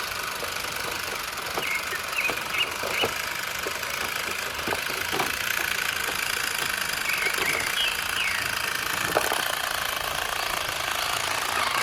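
Radio-controlled toy truck running: a steady motor whine with scattered faint clicks.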